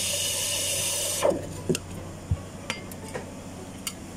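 Drink-making machine in a café running with a loud hiss that cuts off about a second in, with a short falling tone as it stops. Then comes a string of about six sharp knocks and clicks of equipment being handled.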